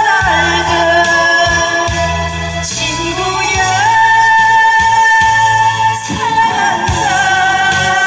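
A woman singing a Korean trot song into a microphone over instrumental accompaniment with a steady beat, sliding into and holding long notes.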